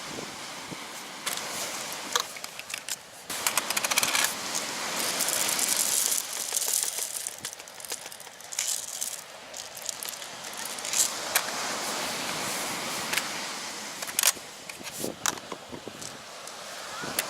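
Small objects being handled: irregular clinks and rattles with stretches of rustling.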